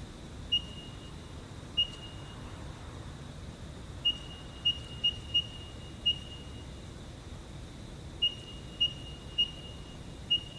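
ProtoTrak AGE 2 CNC control keypad beeping as keys are pressed: about eleven short, high beeps at an uneven pace, some in quick runs, over a faint steady electrical hum.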